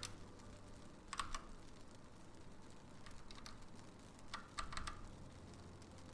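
Mechanical keyboard keycaps clacking: a handful of sharp, scattered clicks, some in quick pairs, rather than steady typing.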